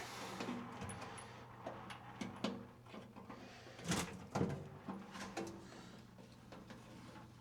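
Steel tool-cabinet drawer being worked out of its cabinet: scattered light clicks and knocks of metal, the loudest about four seconds in.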